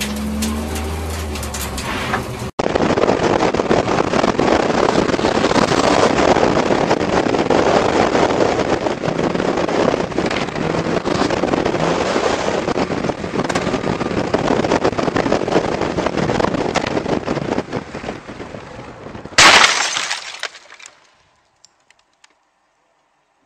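A rally car's engine running for about two seconds, then an abrupt change to a long, loud rushing noise dense with crackles as a car drives at night through a thick cloud. It ends in a short, very loud burst near the end, after which the sound dies away.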